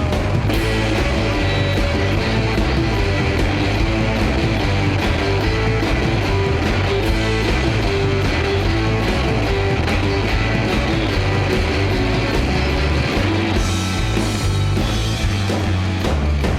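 Rock band playing an instrumental passage: distorted guitars, bass and drums, with no singing.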